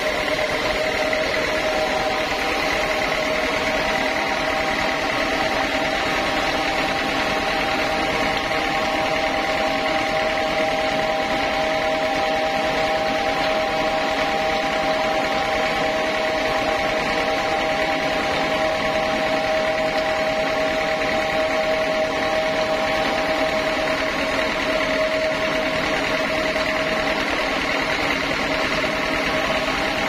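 Large log band sawmill running, with a steady whine over a mechanical hum.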